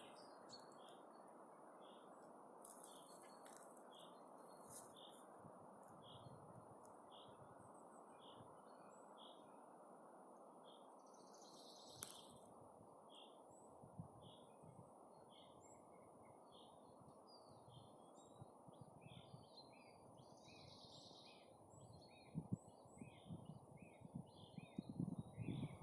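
Forest songbird calling a short, high chirp over and over, about once a second, with a second bird's lower notes joining it later. A steady faint hush runs underneath, and there are a few low knocks near the end.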